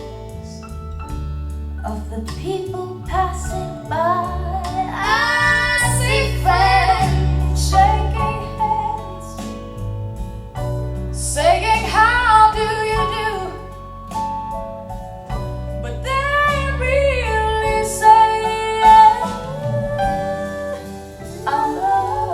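Folk song: a woman singing in long phrases over instrumental accompaniment with steady low bass notes.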